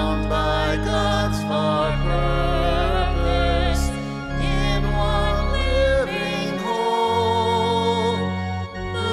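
Music: a voice singing with vibrato over held bass notes and chords that change every second or two, as in a worship song.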